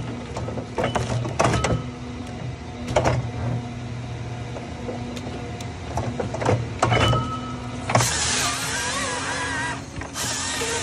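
A machine's motor running with a steady hum, struck by sharp knocks and clicks every second or two. About eight seconds in, a loud hissing noise starts; it breaks off briefly and then comes back.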